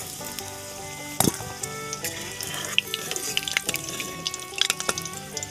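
Background music over hot oil sizzling in a kadai, with a few sharp clinks.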